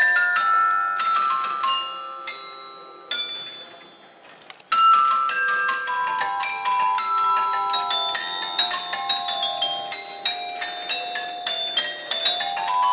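A melody of struck metal bell tones played from a keyboard chime, each note ringing and dying away. The notes fade out for about a second near the fourth second, then start again with a falling run of notes and a rising run near the end.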